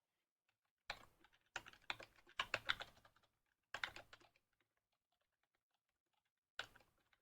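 Computer keyboard typing in four short bursts of rapid keystrokes, with pauses between them.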